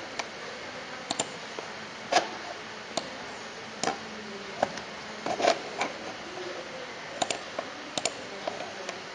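Irregular clicking of a computer mouse and keyboard: about fifteen sharp, unevenly spaced clicks over a steady low hiss.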